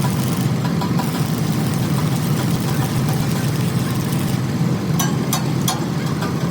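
An engine running steadily at idle, with three sharp clicks in quick succession near the end.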